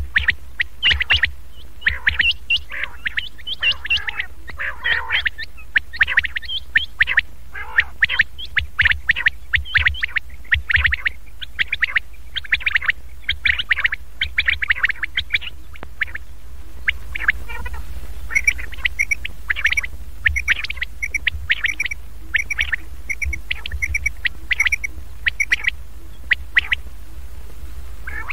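Recorded common quail calls played as a lure: rapid, repeated short calls that shift to a different call series about halfway through, over a steady low hum.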